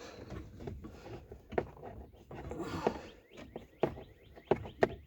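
Hand work on plastic trim and wiring under a pickup's dash: a string of sharp clicks and knocks, the loudest near the end, with rustling and faint squeaks between.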